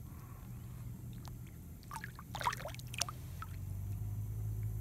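Water splashing and sloshing as a released largemouth bass kicks free of the hand and swims off, with a few short splashes about two to three seconds in, over a steady low hum.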